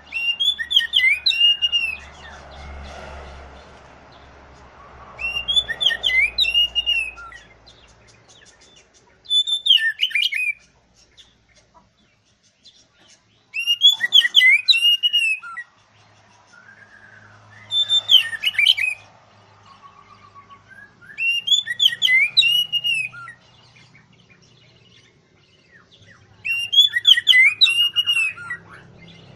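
Oriental magpie-robin (kacer) singing loudly: seven rich, whistled song phrases of quick rising and falling notes, each one to two and a half seconds long, with pauses of a few seconds between them.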